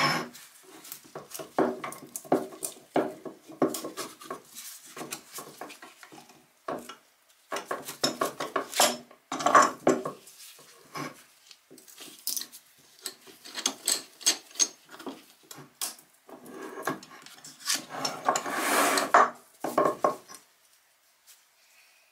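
Steel screw bar clamps being unscrewed and lifted off an axe handle once its glued resin scales have cured, with irregular metallic clicks, rattles and clatter. There are heavier bursts of handling noise a few times.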